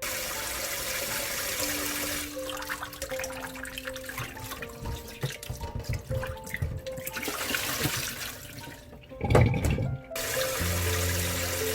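Water running from a kitchen tap into a sink as a steady rush, with a louder low splash about nine seconds in. Gentle piano background music plays over it.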